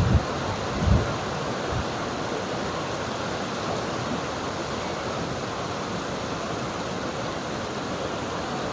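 River water flowing steadily. Two brief low thumps come within the first second.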